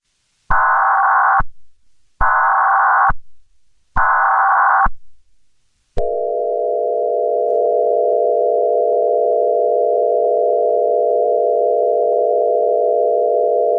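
Emergency Alert System tones: three short buzzing header bursts of data, about 1.7 seconds apart, then the long steady two-tone attention signal starting about six seconds in.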